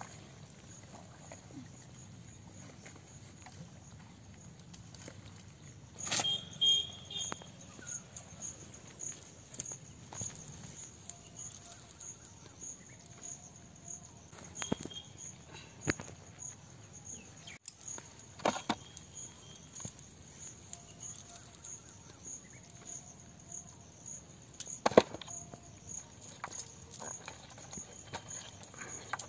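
Crickets chirping in a steady, evenly pulsing high trill. Scattered sharp knocks and rustles sound over it, the loudest about six seconds in and near the end.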